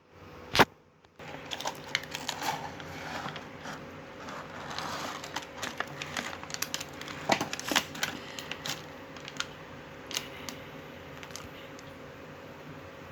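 Plastic toy packaging and parts being handled: irregular clicks, taps and rustles, busiest in the first two-thirds and thinning out near the end over a faint steady hum.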